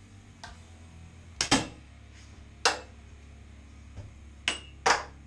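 Metal adjustable shower curtain rod and its end fittings clinking and knocking as they are handled and fitted together: about six sharp metallic knocks with brief ringing, the loudest about a second and a half in and near the end.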